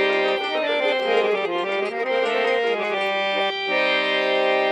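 Harmonium playing a Pashto folk tune: a run of changing notes, a brief break about three and a half seconds in, then a held chord.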